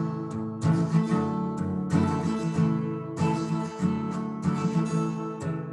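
Acoustic guitar strummed in chords, with no singing.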